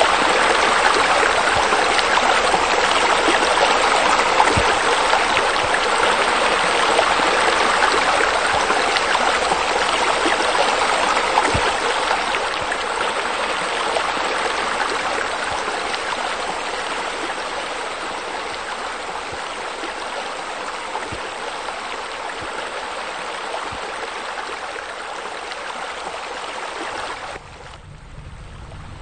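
Steady rushing, splashing water of pool deck jets arcing into the pool. It slowly fades through the second half, then drops out suddenly near the end, leaving a low rumble.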